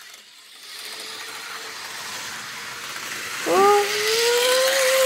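Small electric motor of a toy model train whirring steadily as it runs along the track. About three and a half seconds in, a long drawn-out voice sound rises in pitch and then holds, louder than the whir.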